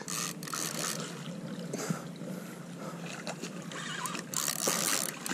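Water splashing and sloshing as a hooked freshwater drum thrashes at the surface in the shallows, with a louder splash near the end.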